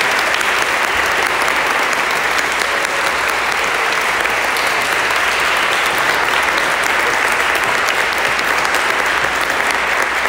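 A congregation applauding steadily, many hands clapping together.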